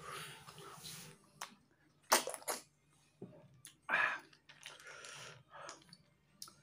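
Tutut (small freshwater snails in spicy sauce) being sucked out of their shells and chewed: a soft slurping hiss at first, then several short wet sucks, the loudest about two and four seconds in.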